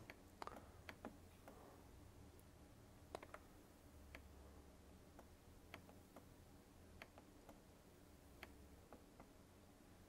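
Near silence: faint room hum with about a dozen soft, irregular clicks from working a computer's mouse and keys.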